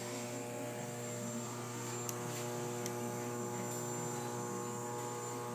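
Stepper motors of a Roland Stika plotter converted to a CNC hot-wire foam cutter running at a steady speed, a continuous whine of several held tones while it feeds the polystyrene block through the cut. A couple of faint ticks come about two and three seconds in.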